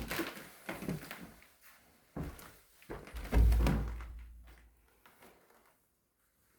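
A string of knocks and footfalls in a bare, echoey room, then one heavy low thump a little over three seconds in that dies away over about two seconds.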